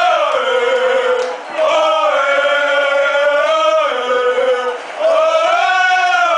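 A group of men chanting a football song together in unison, in long held phrases with two short breaks between them.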